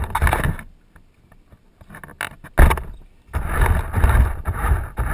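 Radio-controlled car driving: rumbling noise that comes and goes, with a sharp knock about two and a half seconds in.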